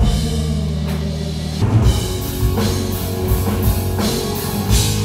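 Rock-style band music with a drum kit: held bass notes under repeated drum hits and cymbals.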